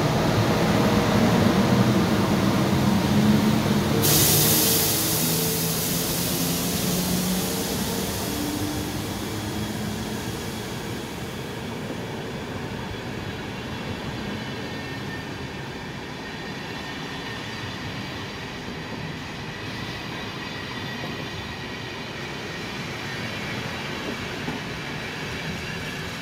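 A train running along the track, its noise loud at first and slowly fading away. A bright hiss comes in suddenly about four seconds in and dies away by about eleven seconds, and faint high steady tones sound later on.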